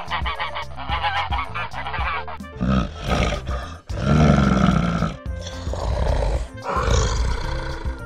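A flock of waterfowl honking rapidly for about the first two and a half seconds, then a larger animal's deeper, louder calls in several stretches, all over steady background music.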